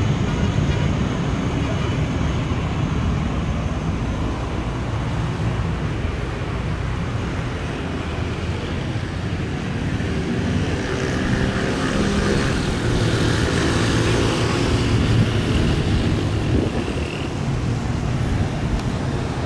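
Twin Pratt & Whitney JT15D turbofans of a Cessna Citation 501 at takeoff power during the takeoff roll: a steady deep rumble with a high whine that strengthens in the second half.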